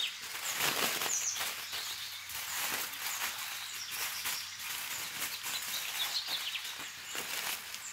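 Aluminium foil crinkling and rustling as gloved hands fold and press it into a sealed packet, with small birds chirping in the background.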